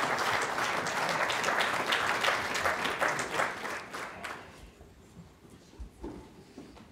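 Audience applauding, the clapping dying away about four and a half seconds in. A few faint low thumps follow near the end.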